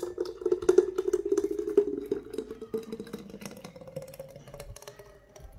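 Thick mango smoothie pouring from a blender jar into a clear jug: a liquid glug with crackly splashing, and a hollow tone that rises slowly as the jug fills. The pour grows quieter and fades near the end.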